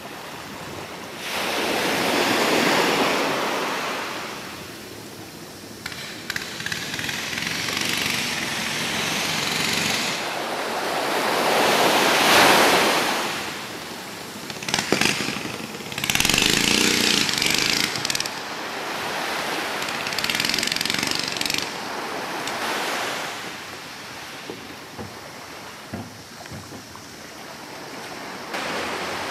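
Small waves washing onto a sandy beach, the surf swelling and fading every few seconds.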